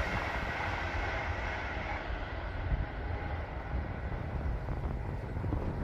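Avanti West Coast tilting express train passing along the main line: a steady rushing rumble.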